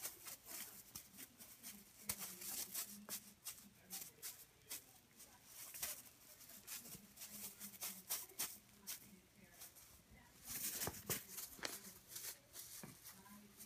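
A cat's claws scratching and rustling against a fabric toy as it grabs and bunny-kicks it: a quick, irregular patter of faint scratches, with a denser flurry near the end.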